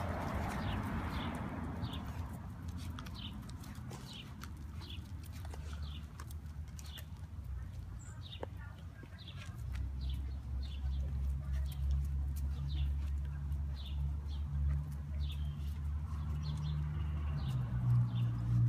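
A bird chirping over and over, short high falling chirps about every half second. About halfway through, a low steady rumble comes in and becomes the loudest sound.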